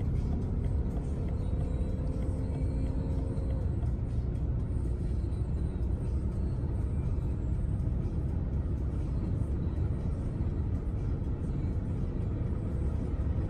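Inside a BMW 5 Series (G30/G31) diesel under hard acceleration at high motorway speed: a steady rumble of engine, tyre and wind noise. The engine's drone breaks off a few seconds in as the automatic gearbox shifts from fifth to sixth.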